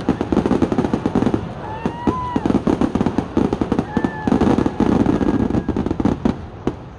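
Fireworks going off in a rapid barrage of sharp cracks and pops, with a few short whistles sliding up and back down among them; the barrage dies away near the end.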